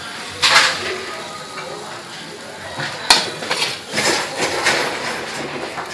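Metal spatula clanking against a wok and plates as stir-fry is dished out: a few sharp clanks, the loudest about three seconds in.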